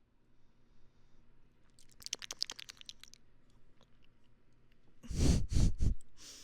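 A quick run of fine crackling clicks about two seconds in, then loud close-up rustling with dull thumps about five seconds in.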